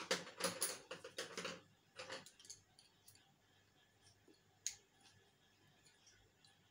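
Thin puzzle sticks clicking against each other as they are handled and laid out by hand: a quick run of clicks in the first second and a half, a few more around two seconds, then one sharp click near five seconds.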